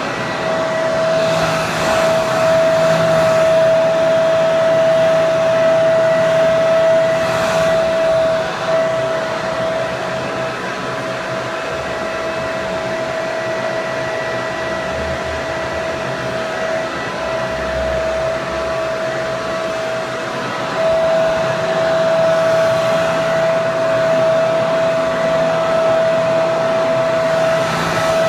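Hair dryer running continuously: rushing air with a steady high motor whine. It gets slightly quieter through the middle stretch, then returns to full level.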